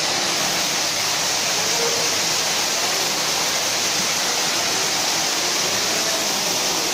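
Water pouring down a decorative artificial rock waterfall into a pool: a steady hiss of falling, splashing water.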